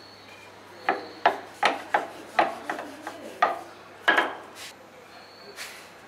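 Roti dough being rolled out on a round wooden board, with a rolling pin knocking against the wood: about nine sharp, uneven knocks over some three seconds, then they stop.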